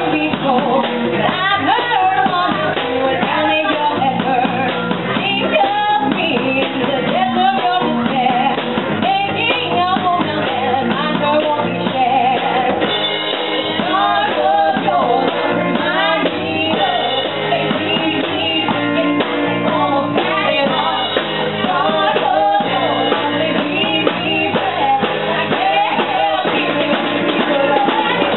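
A woman singing lead into a microphone, backed by a small live band with conga drums played by hand.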